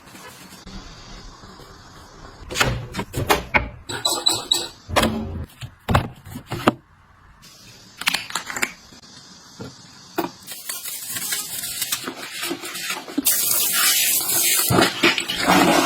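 Household items being handled and set down: a run of sharp clicks and knocks, then two stretches of hissing running water, each lasting about a second and a half.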